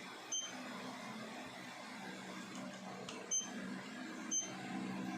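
Quartz watch tester giving short electronic beeps, about one a second in the second half, as it picks up the stepping pulses of the watch's Miyota quartz movement: the sign that the movement is running. A steady low hum sits underneath.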